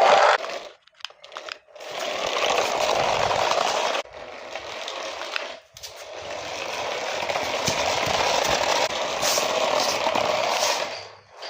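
A toy RC car's small electric motor and gears whirring in runs. There are a few brief starts at first, then a run of about two seconds, a quieter one, and a long steady run of about five seconds that stops near the end.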